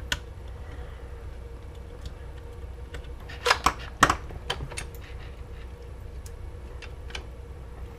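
Scattered sharp clicks and small knocks of an airsoft MP5's plastic receiver parts being handled and its wiring connectors being unplugged. A quick cluster of clicks comes about halfway through.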